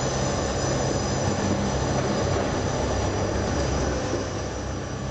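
Hakone Ropeway gondola running out of Ubako station, heard from inside the cabin: a steady mechanical rumble with a low hum and a faint high whine, easing slightly near the end.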